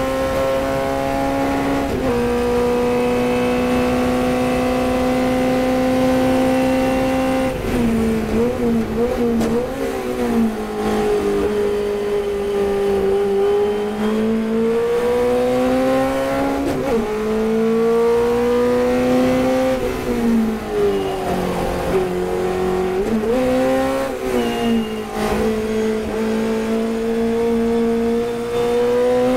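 Chevron B8 race car's engine heard from the cockpit at racing speed. The note climbs slowly in each gear and drops sharply at each gear change, and it wavers quickly up and down under braking about a third of the way in and again about four-fifths of the way in.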